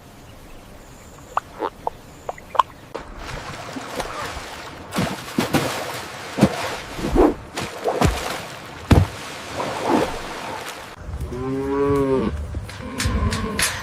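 A cow mooing once, a short call near the end. Before it, several seconds of rustling with scattered thumps.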